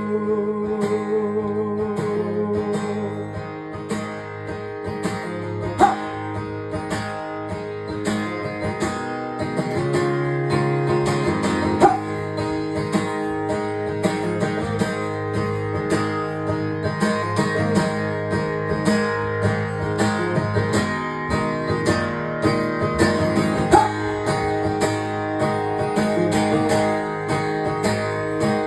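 Instrumental passage of a song led by strummed and picked guitar, with no singing.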